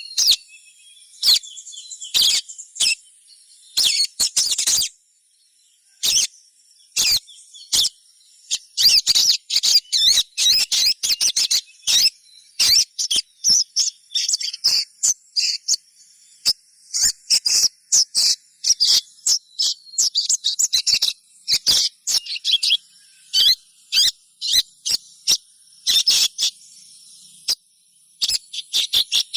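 Juvenile little spiderhunter (sogon) calling: quick runs of short, sharp, high chirps, broken by a brief pause about five seconds in and another near the end.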